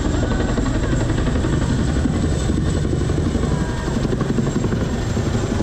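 Low-flying CH-47 Chinook tandem-rotor helicopter passing close overhead, the deep, rapid, steady beat of its two rotors filling the sound.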